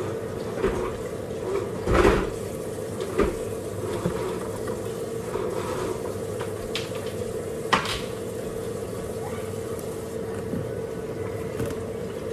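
Water running from a kitchen faucet into the sink, with several sharp clinks and knocks of dishes, the loudest about two seconds in and another just before eight seconds.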